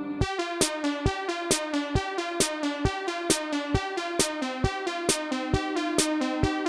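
Short electronic music clip: a drum-machine beat with evenly spaced hits about two a second under a stepping synth melody, starting abruptly just after the start.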